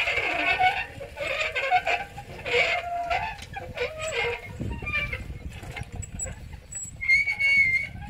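Animal calls, a series of wavering cries through the first half, over a low rumble that grows in the second half; a short high call near the end.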